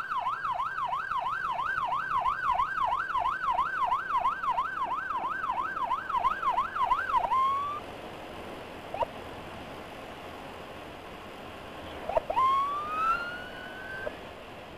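Electronic emergency siren on a fast yelp, sweeping up and down about three and a half times a second, then cutting off about seven seconds in. After that there is steady wind and road rush from the moving motorcycle. Near the end a single siren wail rises briefly and fades.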